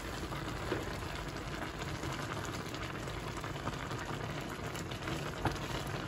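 Water and rice boiling hard in a pot of plov on high heat, a steady bubbling hiss with scattered crackles as the water boils away. A wooden spatula knocks softly against the rice and pot a couple of times, the clearest about five and a half seconds in.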